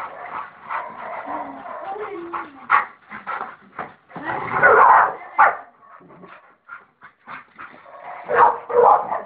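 Pit bulls play-fighting, barking and whimpering in short outbursts, loudest about halfway through and again near the end.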